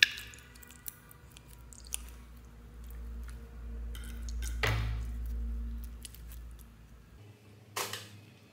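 Scissors snip open a glitter-filled mesh squishy ball with one sharp, ringing snip. Sticky, wet squelching follows as its glitter gel is squeezed out onto slime, with a louder squelch about halfway through and another near the end.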